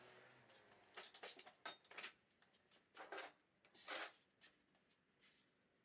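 Quiet handling noises at a workbench: a scatter of short clicks and rustles as a man handles a small part, loudest about four seconds in.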